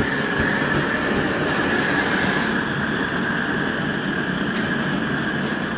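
Propane burner of a homemade chile roaster running just after being lit: gas jetting from MIG welding tips in a 3/4-inch black pipe burner, a steady rush of flame with a steady high whine through it.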